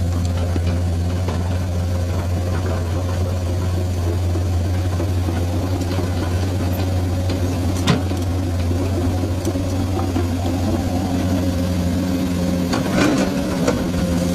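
Komatsu excavator's diesel engine running with a steady low drone, with one sharp click about eight seconds in.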